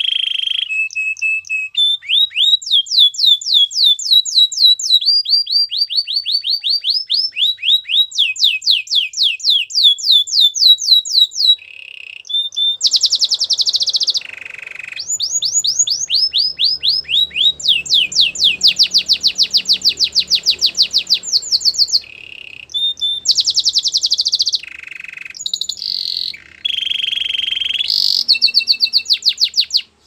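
Domestic canary singing a long song: runs of rapidly repeated sweeping notes, some at a moderate pace and some in very fast trills, alternating with short buzzy held notes and brief pauses.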